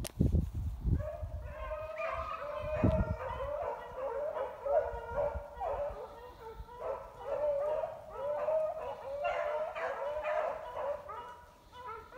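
A pack of beagles baying off in the brush. From about two seconds in, several hounds give voice at once in overlapping, repeated cries. Low rumbling on the microphone comes at the start and again about three seconds in.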